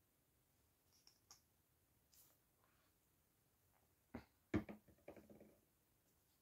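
A few faint clicks, then two sharp knocks a little after four seconds in and a short clattering rattle: plastic acrylic paint bottles being set down and picked up among other bottles on a table.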